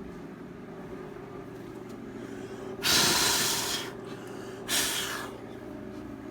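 Two short hissing sprays from an aerosol smoke detector tester can, the first about a second long and the second shorter, over a steady low hum.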